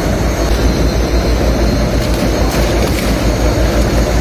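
Fishing boat's engine running steadily under way: a deep, even pulsing drone.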